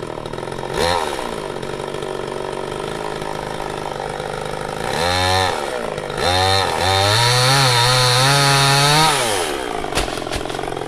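Two-stroke chainsaw idling, blipped once about a second in, then revved about five seconds in. It is held at high revs with a wavering pitch for a few seconds before falling back to idle near the end.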